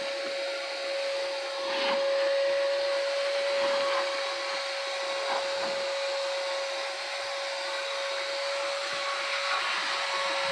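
Vacuum cleaner running steadily on the car's carpets, its motor holding one even whine, with a few faint knocks and rustles.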